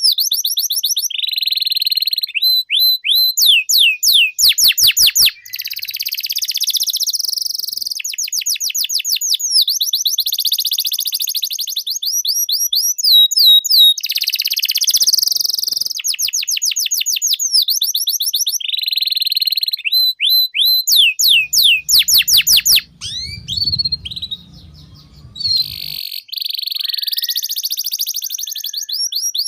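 Domestic canary singing a long, continuous song of rapid trills, rolls and quickly repeated sweeping notes, briefly thinning out about three-quarters of the way through.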